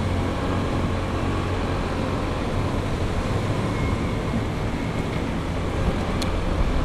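Motorcycle running steadily while being ridden, its low engine drone mixed with wind and road noise.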